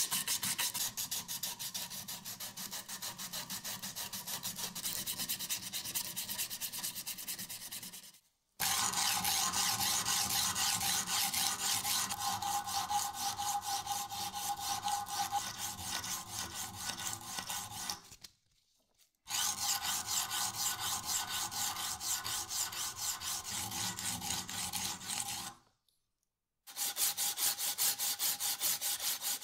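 Sandpaper on a hand-held sanding pad rubbed over the steel blade of an old screwdriver held in a vise, in fast, even back-and-forth strokes, stopping briefly three times. This is hand-sanding the rusted blade smooth.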